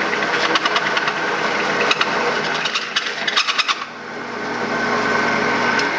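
Drill press running a step bit through aluminum plate, the second pass from the flipped side to open the hole out to 22 mm. A steady motor hum carries rapid scraping and ticking from the cut through the first few seconds. About four seconds in the sound dips, then builds back up to a smoother, steady whine.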